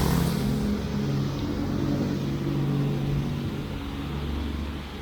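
Road vehicle engine running close by: a steady low hum over street noise, fading slightly near the end.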